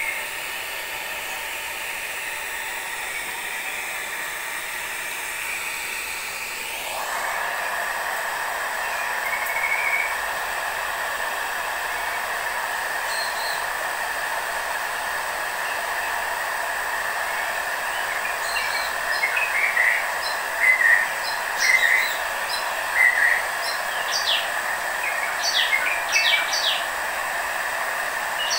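Handheld hair dryer blowing steadily on a wet kitten's fur; its rush gets louder and fuller about seven seconds in. Short high bird chirps sound over it through the second half.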